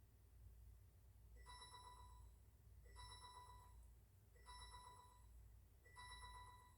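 Faint repeating chime, four short rings about a second and a half apart, each with a fluttering tone.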